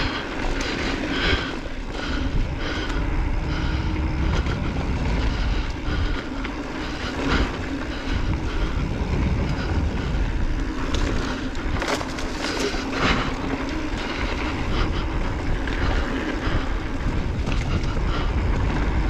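2020 Specialized Enduro Comp mountain bike riding down a dirt singletrack: tyres rolling over dirt and dry leaves under a steady rumble of wind on the microphone, with scattered rattles and knocks from the bike, the loudest around the middle of the run.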